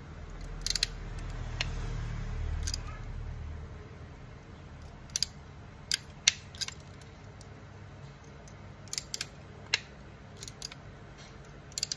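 Cutting blade snipping and clicking several times at irregular intervals as the lined-up wire ends of a Cat 6 LAN cable are trimmed straight, with a low rumble of handling in the first few seconds.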